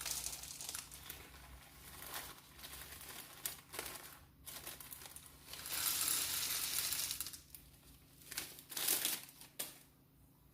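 Bird seed poured into a paper cup in several spurts, a rattling hiss. The longest pour comes about six to seven and a half seconds in, with short rustling handling noises between pours.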